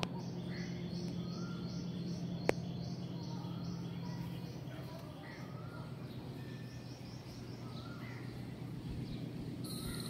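Small birds chirping in the background, with a quick repeated high call during the first half. Under them runs a low steady hum that fades out about halfway through, and there is a single sharp click about two and a half seconds in.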